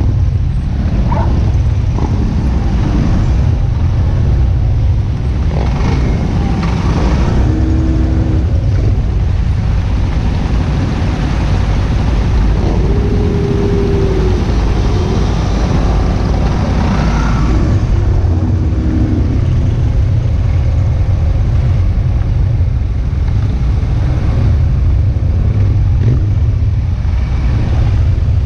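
Motorcycles of a large parade riding past: a steady, loud, low engine rumble, with a few individual engine notes rising and falling over it.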